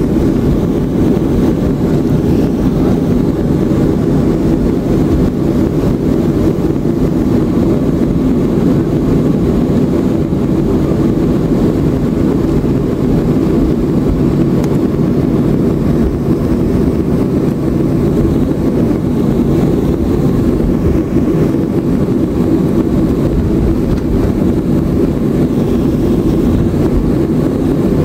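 Steady cabin noise inside a Boeing 737 taxiing, the jet engines running at low thrust: an even low rumble that holds steady without rising or falling.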